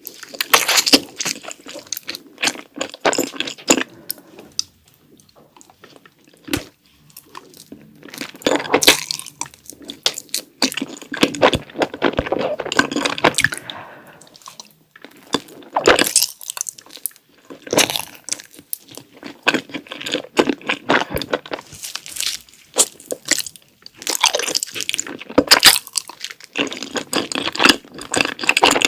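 Close-miked biting and chewing of chocolate mochi: irregular clusters of sharp cracks and clicks, with short pauses between mouthfuls and a quieter stretch about five seconds in.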